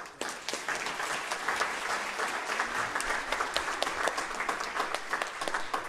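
Audience applauding, many hands clapping at once. It starts suddenly and eases slightly near the end.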